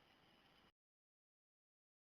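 Faint telephone-line hiss that cuts off abruptly under a second in, then dead digital silence where the call recording has been muted.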